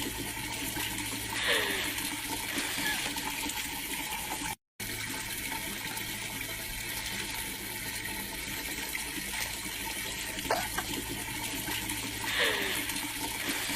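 Steady rush of running water, broken by a momentary dropout to silence about four and a half seconds in. A short sound with a falling pitch comes about a second and a half in and again near the end.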